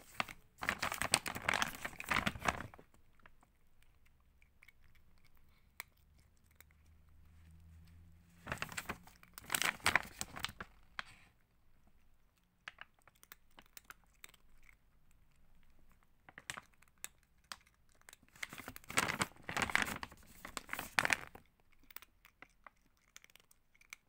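Large plastic bag of dry cat food crinkling as it is handled and turned, in three bursts of two to three seconds each, with faint rustles and clicks in between.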